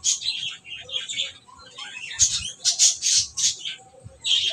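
Music with chirping, squawk-like high sounds played loud through speakers driven by a Pro Main MA-740D power amplifier on its channels 1 and 2, coming in choppy bursts with a few low thumps. The amplifier is working after a repair of its faulty potentiometer controls.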